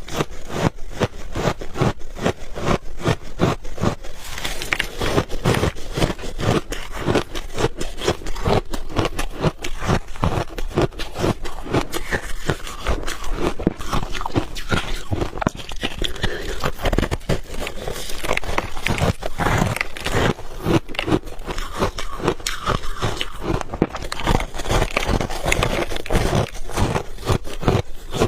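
Refrozen ice balls being bitten and chewed close to the microphone: a fast, continuous run of crunching and crackling.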